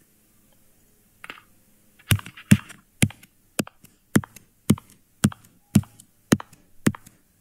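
Foley footsteps played back from a home recording: about ten even steps, roughly two a second, starting about two seconds in, after a brief rustle about a second in.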